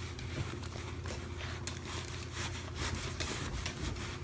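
Faint, irregular rubbing and scraping sounds over a low steady hum.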